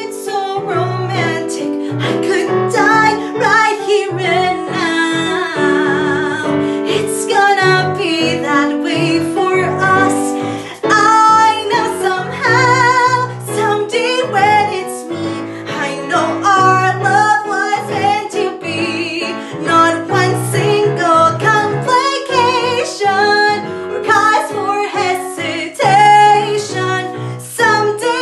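A woman singing with vibrato to piano accompaniment.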